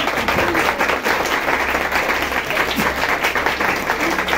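A small group applauding: many hands clapping steadily and densely, with a few voices calling out over it.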